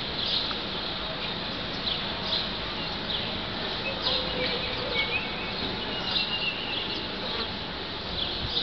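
Steady outdoor background noise with short, high chirps of small birds scattered through it; no thunder.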